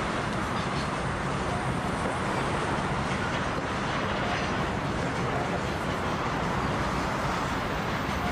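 Container freight train rolling across a steel girder bridge, a steady running noise of the wagons mixed with street traffic.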